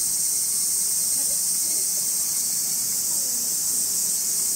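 Steady, high-pitched drone of a summer cicada chorus, holding at an even level without a break.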